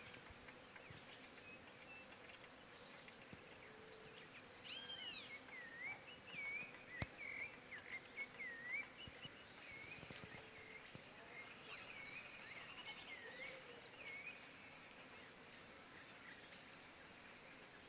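Rufous-bellied thrush (sabiá-laranjeira) singing short whistled phrases, over a steady high insect drone like crickets. The phrases come in the first half, and a brief rapid high trill comes about two-thirds of the way through.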